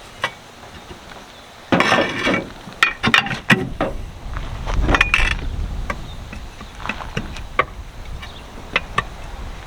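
Steel tire iron prying at a tractor tire's bead on the rim: a loud scraping clatter about two seconds in, then a string of sharp metal clinks and knocks.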